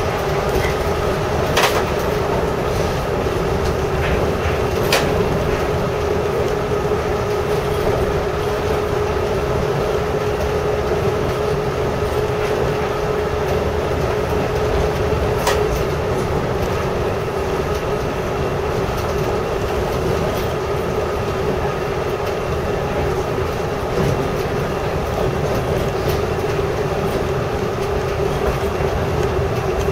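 New Shuttle rubber-tyred automated guideway car running along its concrete guideway, heard from inside at the front: a steady running rumble with a steady hum that weakens about halfway through. A few sharp clicks stand out now and then.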